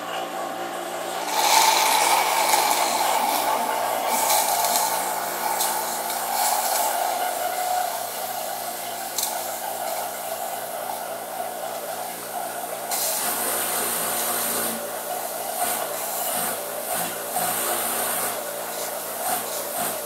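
Hermetic refrigerator compressor running with a steady hum and whir as it sucks fresh oil up a clear tube into its suction line, with a rushing hiss that grows louder about a second and a half in.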